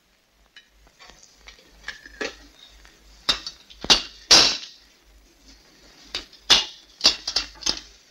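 About ten sharp clinks and knocks at irregular intervals, beginning about a second in, with the loudest pair around four seconds in and a quick cluster near the end.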